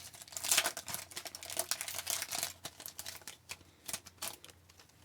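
A trading card pack's wrapper crinkling with quick, irregular crackles as it is handled and opened, dying away near the end.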